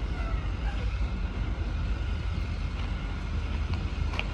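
Box truck engine idling with a steady low rumble, and a couple of faint clicks near the end.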